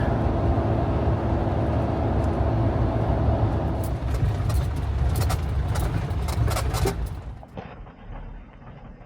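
Jeep driving along a road: steady engine and road noise with a string of sharp clicks or knocks over a few seconds. About seven seconds in it drops away to a much quieter background.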